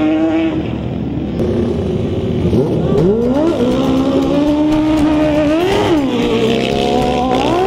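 Quad (ATV) racing engines at full throttle in a dirt drag race. About three seconds in, the engine note drops low and then climbs steeply as they pull away. Near the end the pitch rises and dips back twice, as the engines are shifted up.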